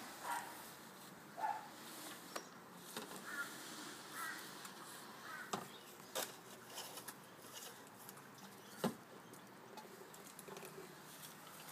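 A plastic watering can being handled, giving a few light sharp knocks, the clearest about six and about nine seconds in. Short faint high calls come and go between them in the first half.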